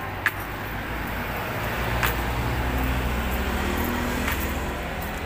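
Street traffic: a motor vehicle's low engine rumble swells about two seconds in and eases off near the end, with a couple of short sharp clicks.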